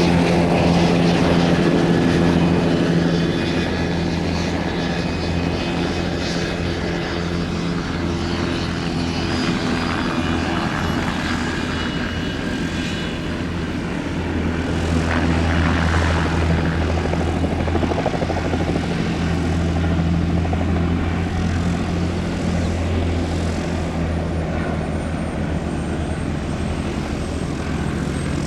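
Light aircraft engine and propeller running with a steady drone. It is loudest at first, fades somewhat, then swells again about halfway through.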